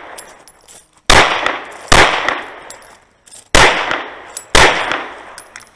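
Four shots from a semi-automatic pistol, fired in two pairs: two shots under a second apart, then after a pause of about one and a half seconds two more about a second apart. Each shot cracks sharply and dies away in a short echo.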